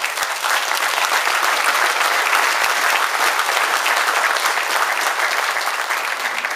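Audience applauding loudly, a dense, steady clapping of many hands.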